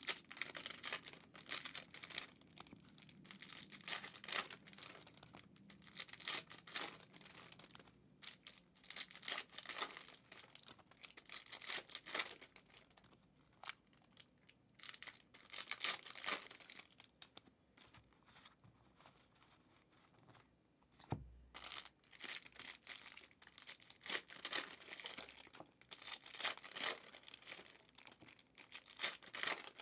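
Trading card pack wrappers and packaging being torn open and crinkled by hand, in quick irregular bursts of rustling, with one dull thump about two-thirds of the way through.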